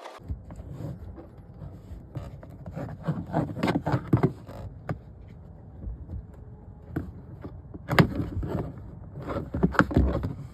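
Irregular clicks, knocks and scrapes of hands working on a car's tail light housing as it is fitted back into place, over a steady low rumble. The clicks come in clusters, the loudest about eight seconds in.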